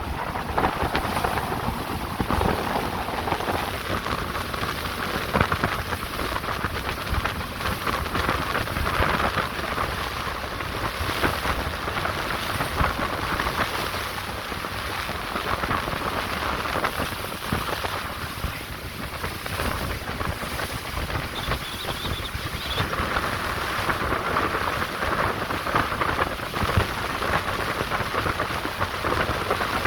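A motorboat running at speed through a choppy sea, its hull slapping the waves and throwing spray, with wind rushing over the microphone. The noise is dense and steady, with a low rumble.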